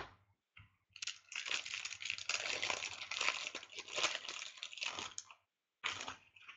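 Crinkling of a trading card pack's wrapper as it is torn open and handled, lasting about four seconds, with a short rustle near the end.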